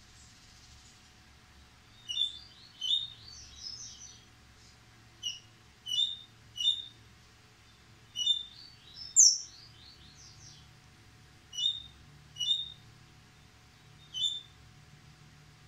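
A caged coleiro-baiano (yellow-bellied seedeater) singing short, quick phrases of high chirping notes, about a dozen of them with brief pauses between, the loudest a little past the middle.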